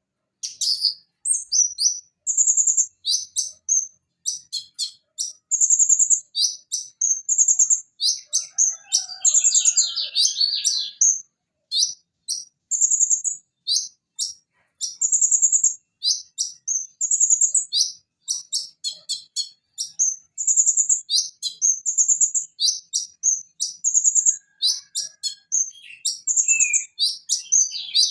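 Purple-throated sunbird (konin, Leptocoma sperata) singing a rapid, varied stream of high chirps, trills and sharp notes. The song starts about half a second in, after a moment of silence.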